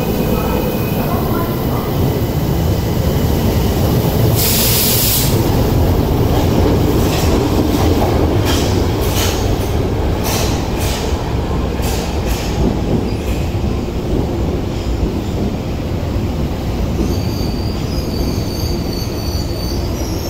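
Tokyo Metro Marunouchi Line 02 series subway train pulling out of an underground station, with a steady rumble. A brief loud, high-pitched burst comes about four seconds in, and a run of sharp clicks follows from about seven to thirteen seconds as the train passes over the track.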